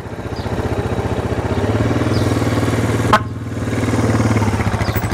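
Suzuki police motorcycle's engine idling with a steady low pulse, a little stronger through the middle. A single sharp click about three seconds in.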